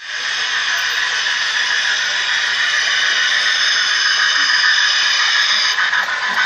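Sound decoder in an HO scale brass Southern Pacific 4-10-2 model steam locomotive playing steam locomotive sound through its small speaker: a steady hiss, which becomes a pulsing beat with light clicking about six seconds in.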